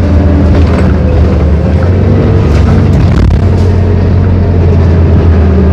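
Detroit Diesel Series 50 inline-four diesel engine of a 1999 New Flyer D40LF city bus, heard from inside the moving bus: a loud, steady low drone as it cruises along.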